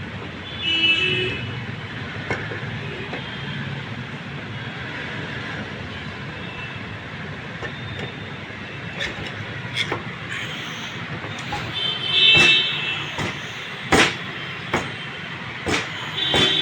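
Steady traffic noise with two brief horn toots, about a second in and again about 12 s in. Several sharp metal clicks and knocks come from the parts of a small motorcycle engine's cylinder head being handled and fitted, the loudest about 14 s in.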